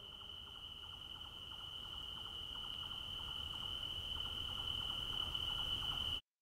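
Night-time insect chorus: a steady, unbroken, high cricket trill with faint rapid ticking underneath. It slowly grows louder, then cuts off suddenly near the end.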